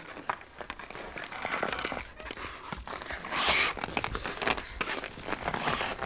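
Hockey skates scraping and carving on ice: a quick run of short, crisp scrapes and clicks, with one louder, longer hissing scrape about three and a half seconds in.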